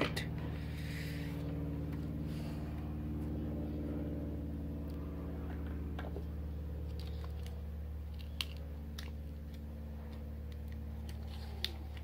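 Steady low hum with several fixed tones, under a few faint clicks and taps from small items being handled on a workbench; two sharper clicks, one about eight seconds in and one near the end.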